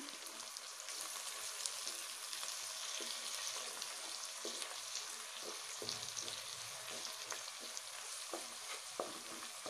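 Beaten eggs sizzling in hot oil in a pan, with irregular scrapes and taps of a wooden spatula as they are stirred and broken up.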